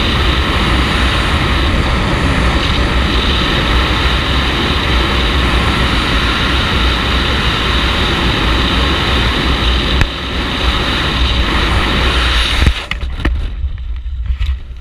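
Strong wind rushing over the helmet camera's microphone during wingsuit flight. About thirteen seconds in it cuts off abruptly, giving way to a quieter stretch with a few sharp snaps as the parachute canopy opens overhead.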